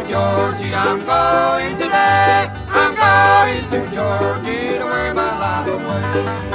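Bluegrass band playing an instrumental passage: banjo, guitar, mandolin and upright bass, with the bass keeping a steady walking pulse.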